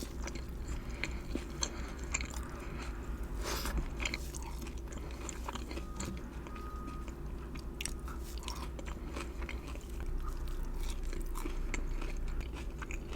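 Close-miked chewing and biting of salmon sliders: a steady run of wet mouth clicks and smacks with some crunching, over a low steady hum.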